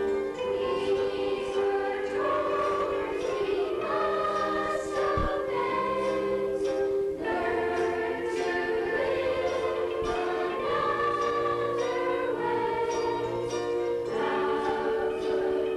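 A youth choir singing a hymn-like song in long held notes, with a soft accompaniment underneath.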